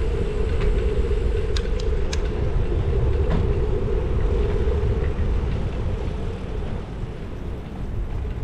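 Riding a bicycle on a town road: wind buffeting the handlebar-mounted camera's microphone over the rumble of the tyres on the tarmac, with a steady hum that fades out about five seconds in as the bike slows. A few sharp clicks come in the first couple of seconds.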